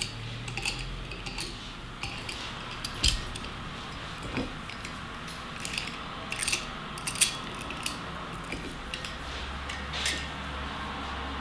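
Winged corkscrew being twisted into the cork of a wine bottle: scattered small metallic clicks and creaks over a faint low hum.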